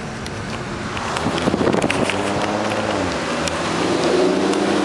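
Car engine running with a steady, slowly shifting note that grows louder about a second in, over wind noise on the microphone.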